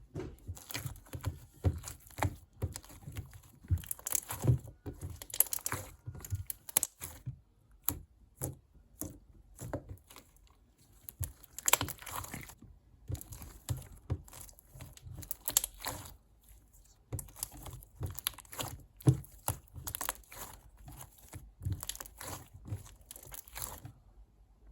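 Slime being squeezed, pressed and poked by hand, giving irregular sticky crackles, pops and clicks with a few short pauses.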